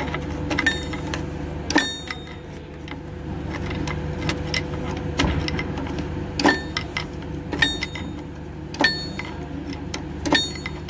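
Cat 966H wheel loader's diesel engine running steadily, with about seven sharp metallic clinks of a wrench on the parking brake adjuster, a second or so apart, as the brake is being adjusted.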